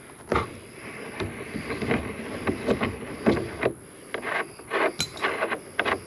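Ratchet wrench loosening the axle nut of a wheelbarrow wheel: bursts of rapid clicking strokes, with one sharp click about five seconds in.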